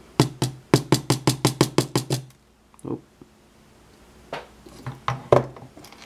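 Brass lock cylinder housing being tapped down hard on the bench, a quick run of about a dozen knocks at roughly six a second, then a few single knocks, to shake out its top pins and springs.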